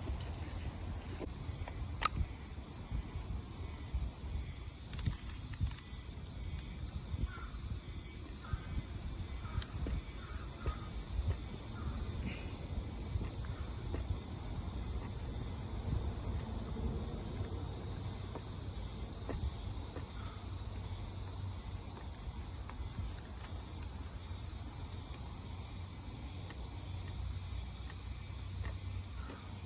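Steady high-pitched buzzing of a forest insect chorus, unbroken throughout, over a low irregular rumble. A few faint short chirps come in the first third.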